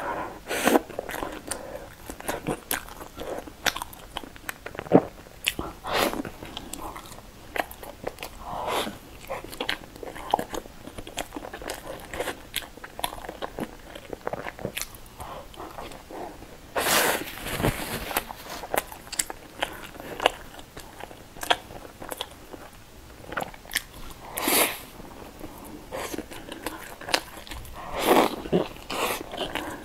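Close-miked eating: bites into a cream-dipped pastry and a soft bread roll, with chewing, wet mouth sounds and irregular clicks. A few louder noisy bursts stand out, the biggest about halfway through and others near the end.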